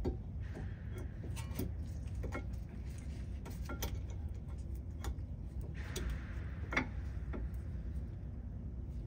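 Light metallic clicks and two short scrapes as a brake pad is pushed against its spring clips and worked into the rear caliper bracket. A steady low background rumble runs underneath.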